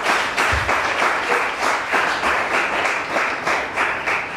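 Audience applauding, a dense steady patter of many hands clapping, greeting a correct answer.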